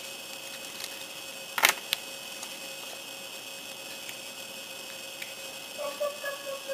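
Sharp click of a small plastic model-kit part on its sprue, about a second and a half in, followed by a lighter click. Under it a steady faint hiss and hum.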